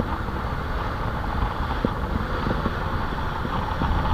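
Steady low rumble of a fishing outrigger boat's engine running under way through rough sea, with wind on the microphone and the wash of water along the hull.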